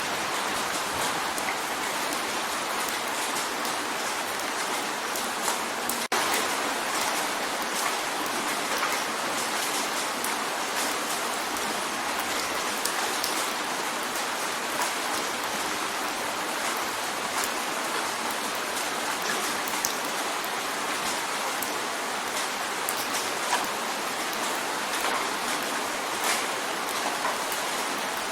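Steady rain drumming on a window pane: a dense, even hiss with many scattered sharper drop hits.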